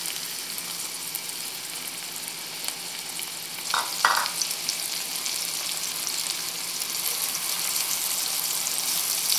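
Diced red onion sizzling steadily in hot oil in a wok, with one brief louder sound about four seconds in.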